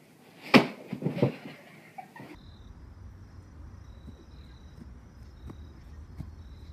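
A sharp smack of a hand striking a leg, followed by a short pained cry. After that comes a steady low rumble of wind on the microphone, with faint high tones coming and going.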